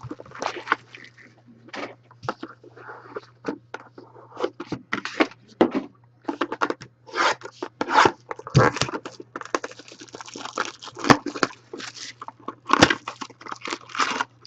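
Trading card packaging and thick cards being handled: irregular crinkles, scrapes and clicks over a steady low hum.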